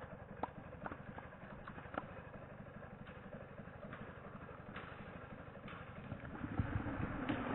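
Husqvarna 545 two-stroke chainsaw idling, with a few sharp knocks in the first couple of seconds; the engine gets louder near the end.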